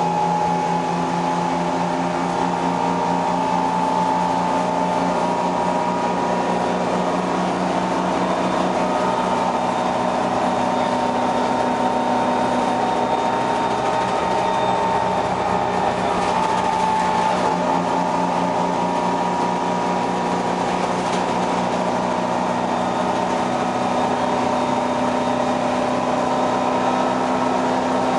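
Detroit Diesel 6V71N two-stroke V6 diesel of a GM New Look bus running steadily under way, heard from inside the cabin: a steady drone with a high whine above it.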